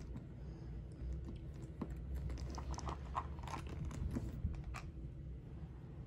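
Small items handled on a tabletop: a run of light clicks and crackling rustles for about three seconds in the middle, as a plastic contact lens case is picked up over a plastic-wrapped packet of wipes.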